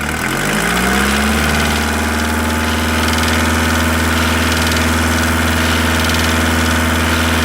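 VW T4 1.9 D diesel engine revving up over about the first second, then held steady at raised speed with a clatter that a teardown traced to a knocking piston pin.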